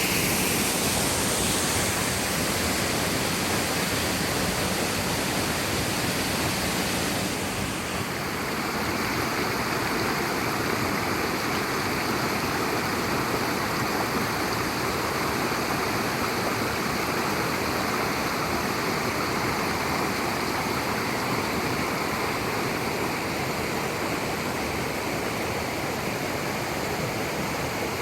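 Waterfall: a steady, even rush of falling water. The highest hiss eases slightly about seven seconds in.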